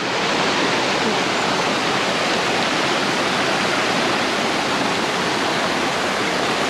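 Waterfall: a loud, steady rush of falling water with no breaks.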